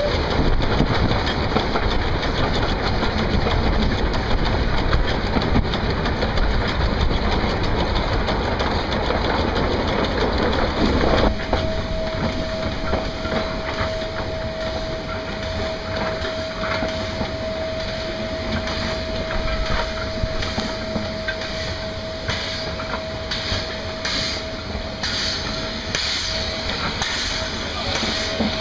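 Small narrow-gauge steam locomotive running, heard from on board: loud running and wind noise that drops abruptly about a third of the way in. From then on a steady high-pitched whine holds over the quieter running of the wheels.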